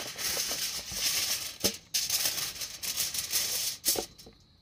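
Sheet of aluminium foil being pulled out and spread flat, crinkling and rustling with a couple of sharp crackles, stopping about four seconds in.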